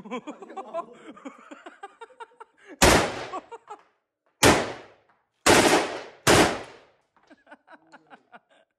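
Submachine gun fired as four single shots, the gaps between them shortening, each shot ringing briefly in an indoor shooting range.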